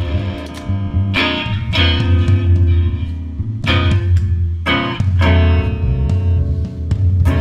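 Electric guitar played loud through a Carvin amp and two Carvin 100-watt speakers, chords struck hard every second or so and left to ring, with a heavy low end.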